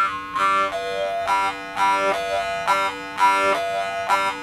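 Jaw harp played with a steady drone, plucked about twice a second, the bright overtones above the drone shifting from pluck to pluck to pick out a melody.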